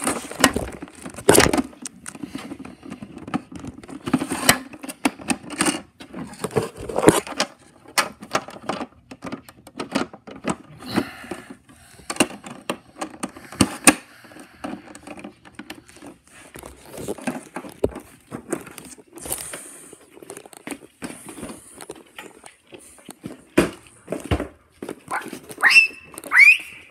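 Handling noise from a phone being carried and moved about: irregular rustling of fabric and small knocks against the phone. A few short, high rising squeaks come near the end.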